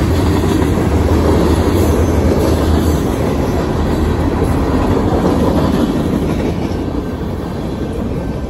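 Freight cars, covered hoppers and then boxcars, rolling past on the rails: a steady loud rumble with wheel clatter, fading near the end as the last car goes by.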